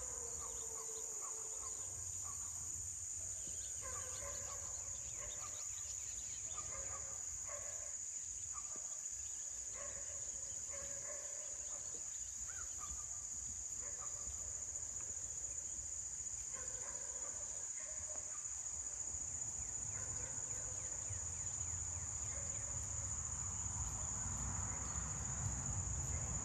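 A chorus of insects keeps up a steady high-pitched drone, with faint short calls scattered through it.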